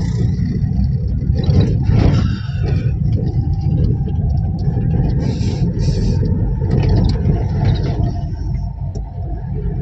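Steady low rumble of engine and tyre road noise heard inside a car's cabin while it drives along the road.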